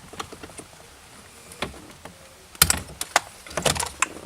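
A series of sharp clicks and knocks, scattered at first and then in two dense clusters, about two and a half seconds in and again near the end.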